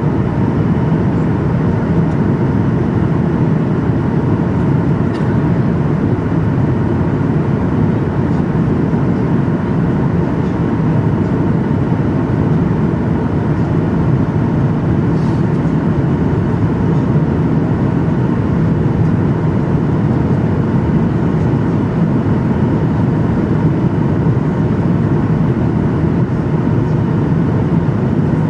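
Passenger plane cabin noise: a steady, unbroken rush of engine and airflow noise, heaviest in the low range, with a faint hum of a few steady tones.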